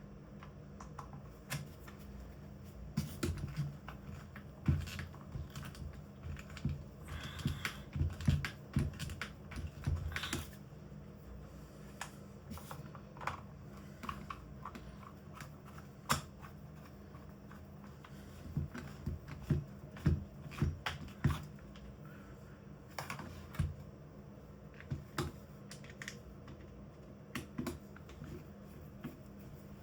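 Irregular small clicks, taps and knocks of the plastic drill housing and a hand screwdriver being handled while the casing screws are driven in.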